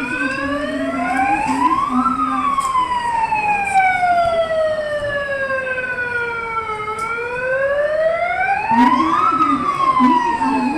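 Emergency siren wailing in a slow rise and fall: it climbs for about two seconds, sinks for about five, then climbs again near the end.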